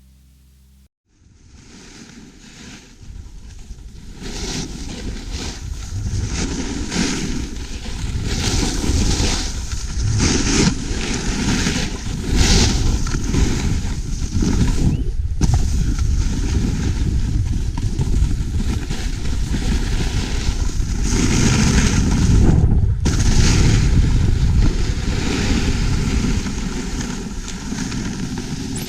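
Loud, steady wind rumble buffeting the microphone outdoors. It builds up over the first few seconds and then holds.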